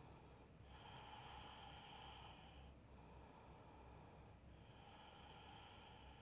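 Faint, slow human breathing held in a yoga pose: two long breaths of about two seconds each, the first starting just under a second in, the second about halfway through.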